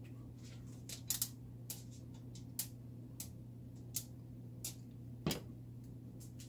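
Kitchen utensil clicks: a silicone basting brush and a plastic sauce container tapping while barbecue sauce is spooned out, about eight sharp, uneven clicks with the loudest knock about five seconds in. A steady low hum runs underneath.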